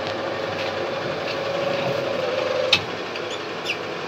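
Belt-driven paste mixer running, its electric motor and V-belt drive giving a steady mechanical hum with a thin whine. About two-thirds of the way through the whine stops with a single loud clunk as the heavy mixing head comes down onto the bucket.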